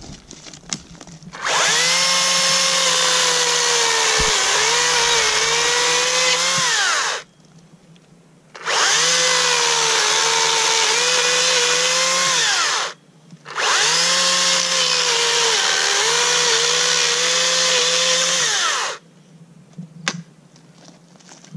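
Makita battery-powered electric chainsaw running in three long loud bursts with short pauses between, its motor and chain whine sagging and wavering in pitch as the chain cuts through a fallen log.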